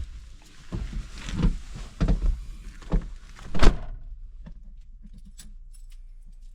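A door being opened, with a row of knocks and thuds, the loudest about three and a half seconds in, then light clicks and rattles.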